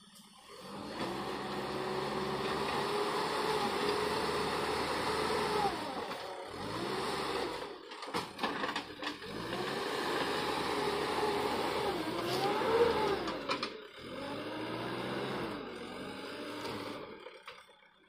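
JCB 3DX Eco Xpert backhoe loader's diesel engine working under load while pushing soil with the front bucket, its pitch rising and falling repeatedly. The engine sound drops away briefly about six seconds in and again about fourteen seconds in, and fades near the end.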